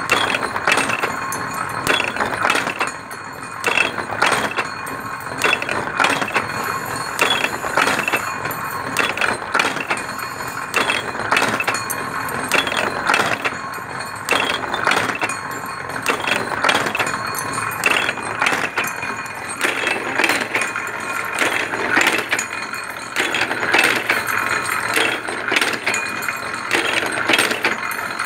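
Snap hook wire-forming machine running automatically, its sliding tools bending wire around the die pins over and over: a continuous run of metallic clicks and clanks in a repeating cycle, over a steady machine whine.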